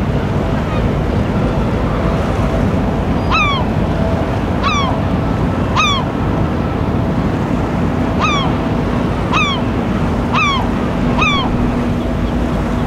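Steady rumble of wind and water with a low hum from the passing container ship. Over it, a bird gives seven short calls, each falling in pitch, spaced about a second or two apart.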